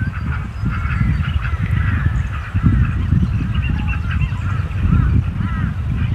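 A chorus of birds calling in short, repeated, arching notes, over a loud, uneven low rumble of wind on the microphone.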